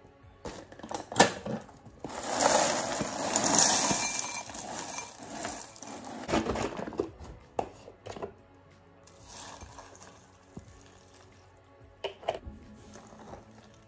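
A glass bowl set down on a stone countertop with a sharp clink, then dry cereal poured into it from the box: a rattling rush for about three seconds, followed by shorter pours and clinks later on.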